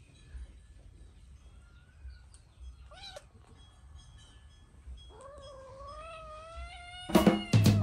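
Baby monkey crying in thin, high calls: a short cry about two seconds in, a brief one at three seconds, and a longer cry that rises and then holds from about five seconds in. Music comes in loudly near the end.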